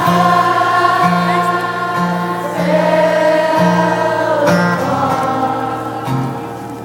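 Live rock band music played loud through a concert PA, with long held choir-like vocal notes over a bass line that steps from note to note about once a second.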